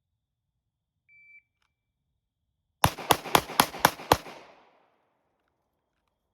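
A shot timer beeps once, then about a second and a half later a pistol fires six rapid shots, roughly a quarter second apart, as a bill drill drawn from concealment; the echo of the shots trails off afterwards.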